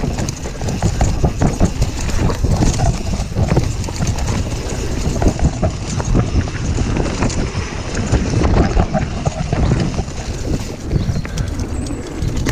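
YT Jeffsy mountain bike riding fast over a dirt woodland trail: a continuous low rumble from the tyres on the ground, broken by frequent irregular knocks and rattles from the bike over roots and bumps.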